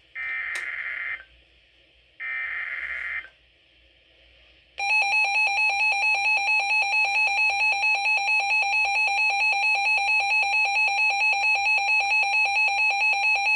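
Two bursts of EAS SAME header data, the harsh warbling digital tones of a weather radio alert code, each about a second long and a second apart. About five seconds in, a weather radio receiver's alert alarm starts: a loud, rapidly pulsing beep, about four or five pulses a second, marking a severe thunderstorm warning.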